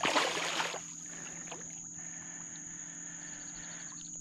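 Hooked redfish thrashing and splashing at the water's surface beside a kayak for about the first second, then only a low, steady background.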